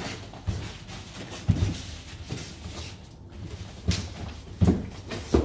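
Cardboard box and packaging being handled, with about five dull thumps and knocks spread unevenly.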